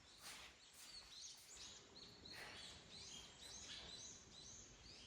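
Faint bird chirps: a run of short, high calls repeating every half second or so over a quiet background hiss.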